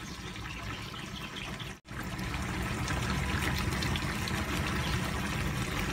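Chicken afritada in tomato sauce simmering in a frying pan, a steady bubbling. It cuts out for an instant about two seconds in, then goes on a little louder.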